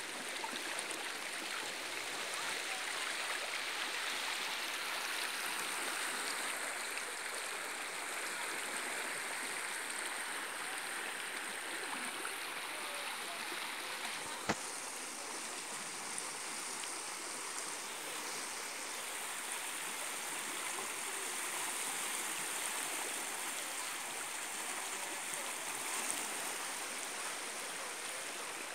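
Muddy river in flood rushing past the bank, a steady, even rush of fast water. One sharp click about halfway through.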